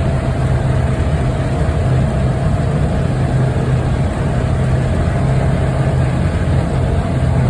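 Side-by-side UTV engine running at a steady speed, a continuous low drone heard from on board.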